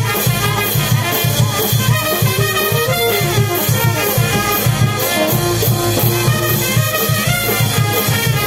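Brass band with a sousaphone and other horns playing a dance tune, a steady beat in the bass under held horn notes.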